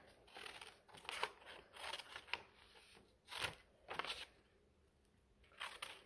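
Scissors cutting paper: faint, irregular snips and rustles of the sheet, with a pause of about a second near the end.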